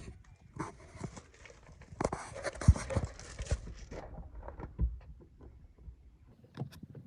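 Hand screwdriver working the square-drive screws of an RV tail light lens: irregular clicks and scrapes of the bit against the screws and plastic housing, with rustling handling noise and two sharp knocks about a third and two thirds of the way through.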